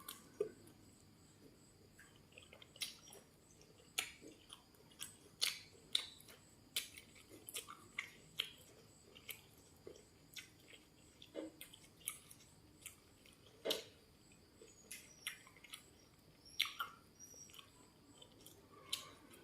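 Close-up chewing of crisp food, with sharp crunchy clicks every second or so.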